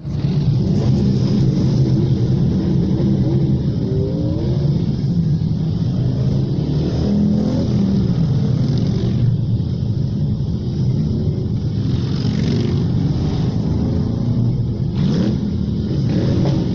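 A convoy of many motorcycles riding past in a road tunnel, their engines running together and echoing off the tunnel walls. Several riders rev up in passing, about 4 and 7 seconds in.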